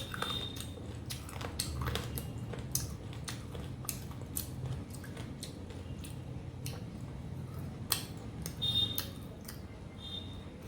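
Close-miked chewing of a mouthful of mutton curry and rice: irregular smacking mouth clicks.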